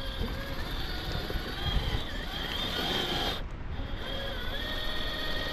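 Electric motor and gear train of a 1/7-scale RC Jeep crawler whining, the pitch shifting up and down with the throttle, over a low wind rumble on the microphone. The whine breaks off briefly a little past halfway.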